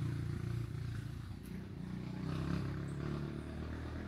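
Low, steady rumble of a motor vehicle's engine running.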